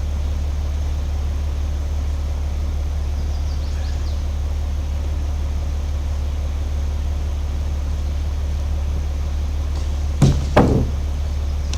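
Delivery truck engine idling steadily with a low hum. Two sharp knocks come about ten seconds in, a fraction of a second apart.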